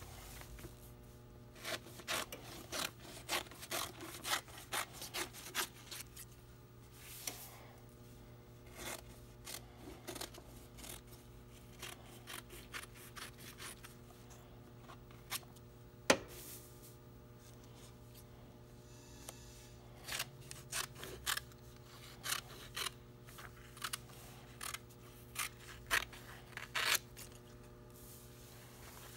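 Scissors snipping through sublimation-printed polyester twill fabric, in quick runs of cuts near the start and again in the last third, sparser in the middle. One sharper click stands out about halfway, over a faint steady hum.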